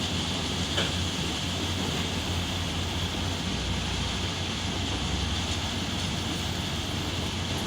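Heavy earthmoving machinery's diesel engine running steadily with a low rumble, with one brief sharp clank about a second in.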